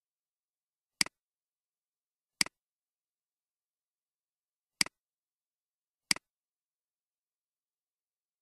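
Four sharp computer mouse clicks, each a quick double tick of press and release, spaced one to two and a half seconds apart with complete silence between them.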